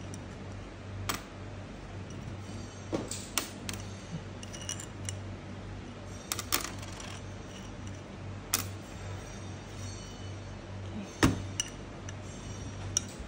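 Small metal clicks and clinks of nuts, washers and roller chain being handled and set down on a sheet-metal plate while a chain sprocket is taken apart by hand, spaced a second or two apart with the sharpest one near the end. A steady low hum runs underneath.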